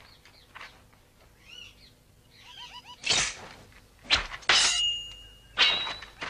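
Sword-fight sound effects: a sharp swish about three seconds in, then a quick series of hard hits, two of them ringing on briefly like struck metal blades. Faint chirping before.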